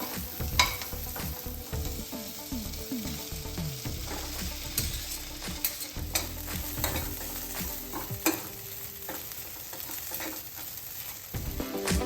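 Pieces of idli frying in hot oil, sizzling steadily, while a spatula stirs them with a few sharp clicks and scrapes against the pan.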